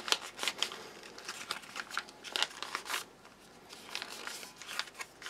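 Foil retort pouch crinkling and rustling as it is squeezed and scraped to empty sticky toffee pudding into a bowl, in irregular soft crackles with a short lull about three seconds in.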